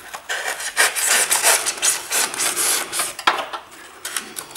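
A knife cutting into dry floral foam around a small fern pot: a run of scratchy sawing strokes for about three seconds, a short lull, then more strokes near the end.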